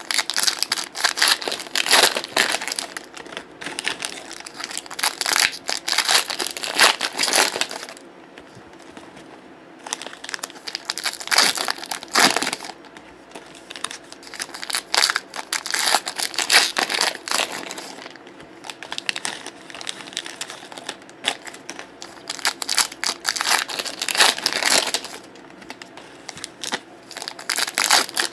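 Foil trading-card pack wrappers being torn open and crinkled by hand, in bursts of crackling with short pauses between them.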